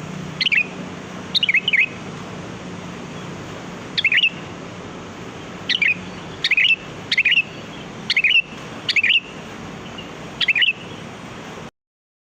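Sooty-headed bulbul (kutilang) giving short, sharp chirping calls, about ten of them with some in quick pairs, over a steady hiss. The sound cuts off abruptly near the end.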